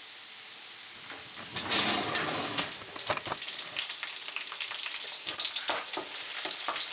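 Carrot strips sizzling in hot oil in a non-stick frying pan; about a second and a half in the sizzle grows suddenly louder as sliced fennel goes in on top. After that a wooden spatula scrapes and taps against the pan in short irregular strokes as the vegetables are stirred.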